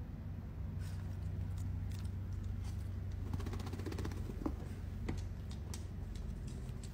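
Light clicks and scuffs of a small dog's paws and claws stepping and turning on a wooden board, with a quick run of fine clicks about halfway through, over a steady low hum.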